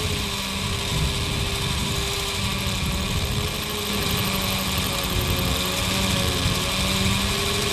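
Electric rotary hammer drill boring into a masonry block, running steadily with a constant motor hum and rapid hammering as the bit advances.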